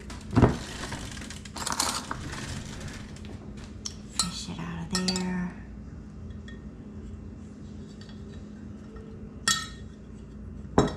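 Clinks and knocks of a glass measuring cup holding cracked eggs, handled while a piece of eggshell is fished out of it. There is a loud knock about half a second in, scraping and clinking around the middle, and two sharp clinks near the end.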